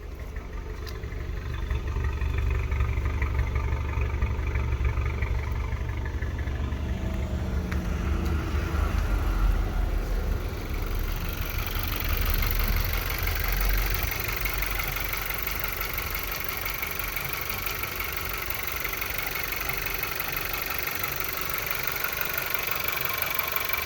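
VW Golf Mk7 1.4 TSI turbocharged four-cylinder petrol engine running at idle, on a car that logs random multiple-cylinder misfire codes. A deep rumble dominates the first half and eases about halfway in, as a higher hiss comes up.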